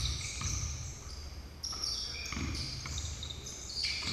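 A basketball bouncing on a hardwood gym floor in dull repeated thuds, with sneakers squeaking sharply as players run and cut, in a large echoing gymnasium.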